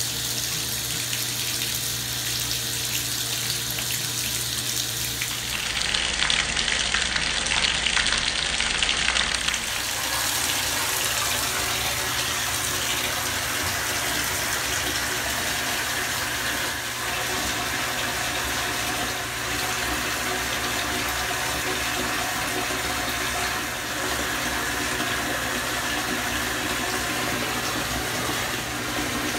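Bathtub tap running steadily into the tub, water splashing over a hand held under the stream. The flow gets louder and brighter about six seconds in for a few seconds, then settles back to an even rush.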